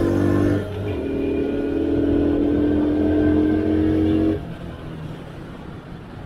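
Traffic noise on the road while riding a 70cc motorcycle, with a loud held tone that rises slightly in pitch and cuts off suddenly about four seconds in, leaving quieter engine and road noise.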